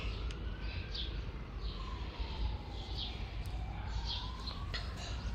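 A distant siren wailing, its pitch slowly rising and falling, with birds chirping about once a second.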